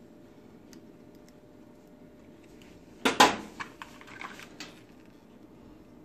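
Hand tools and small metal parts clattering on a hard surface: one sharp clatter about halfway through, then several lighter clicks and rattles.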